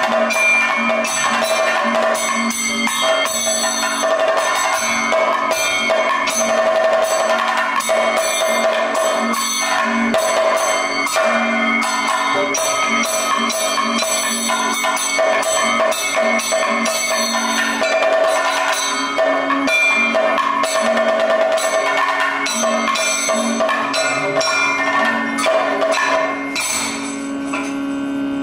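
Kathakali percussion ensemble playing: chenda and maddalam drums in a fast, dense rhythm, with the singers' gong and small cymbals ringing steadily over the drumming. The playing eases slightly near the end.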